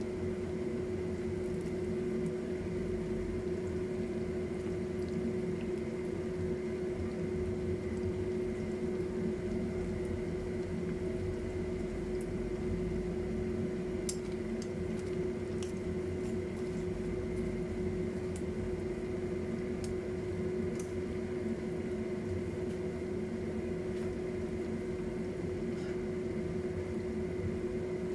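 Spring rolls deep-frying in a pot of oil, the oil bubbling and sizzling steadily, under a constant appliance-like hum with one steady tone. A few faint light clicks come in the middle.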